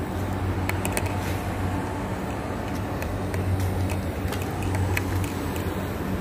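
Steady low hum and rumble of city traffic, with a few faint clicks.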